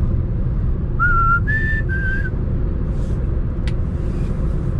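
A person whistles three short, steady notes over the continuous low rumble of the car's engine and road noise inside the cabin.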